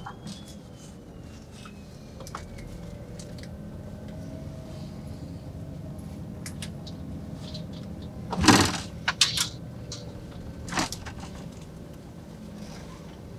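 Inside a double-decker highway bus rolling slowly: a steady low engine rumble. About eight and a half seconds in comes a loud, short hiss of compressed air from the bus's air system, followed by a couple of clicks and a second, smaller hiss about two seconds later.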